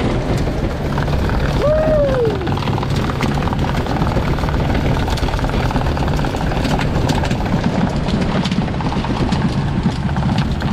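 Sportfishing boat's engine running steadily under way, with wind and water noise over it. A short tone falls in pitch about two seconds in.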